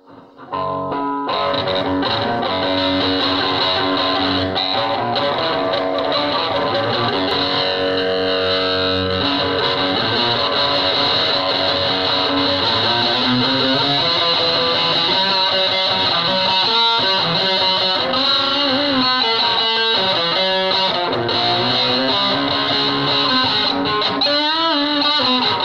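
Electric guitar played through distortion: sustained, fuzzy chords and notes that start abruptly about half a second in and hold at a steady loudness, with notes bending up and down near the end.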